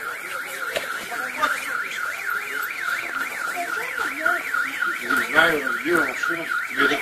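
Car alarm sounding: a rapid electronic warble rising and falling about four times a second.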